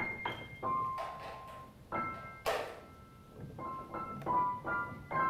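A piano playing single high notes and small groups of notes, each ringing and fading. The notes are spaced out at first and come more quickly near the end. About halfway through there is a short, sharp hiss.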